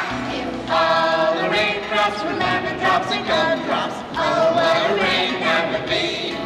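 Children's song playing: a group of voices sings a wordless 'ah-ah-ah' line over light musical accompaniment.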